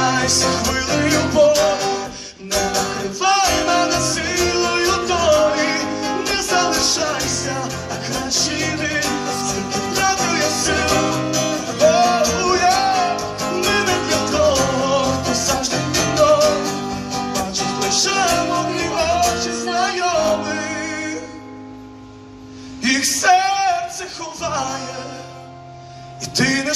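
Live acoustic guitar strummed under a male voice singing long, wavering notes. After about twenty seconds the music thins and drops in level, with one more sung phrase near the end.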